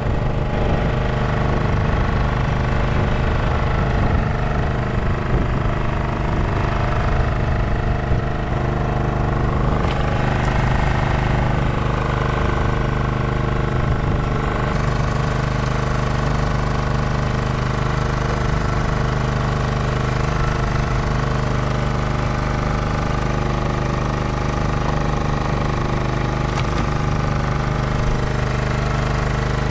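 An engine on a small fishing boat running steadily, a constant low drone that does not change in speed.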